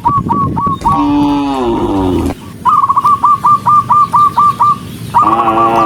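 Cows mooing: one long low moo that falls in pitch, and another starting near the end. Between them comes a bird's call, a quick string of short high chirps at about five a second.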